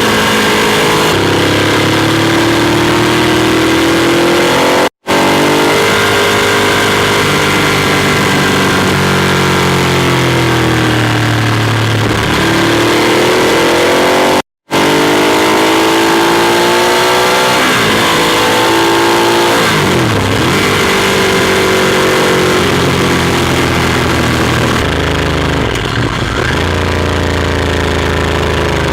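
Ducati Monster 821's Testastretta L-twin engine heard from the rider's position under way. Its pitch climbs under throttle and drops back again and again as the bike speeds up and slows, with quick dips and recoveries near the end. The sound cuts out completely for an instant twice, about five and about fifteen seconds in.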